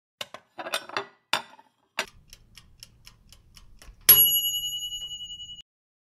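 Sound effect of a ticking clock or timer: a few clicks, then quick even ticks about five a second, ending in a single bright bell ding about four seconds in that rings on for about a second and a half.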